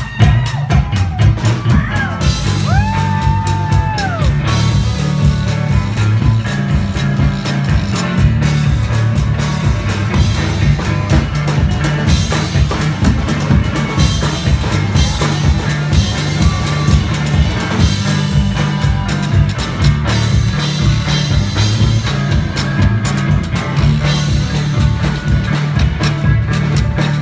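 Live country-blues trio playing a driving, loud number: electric guitar, a washboard scraped with gloved hands and a drum kit keeping a steady beat. A high note slides up and back down about three seconds in.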